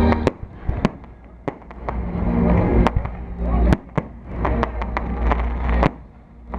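Fireworks going off: an irregular string of sharp cracks and bangs over a low rumble, easing off briefly about a second in and again near the end.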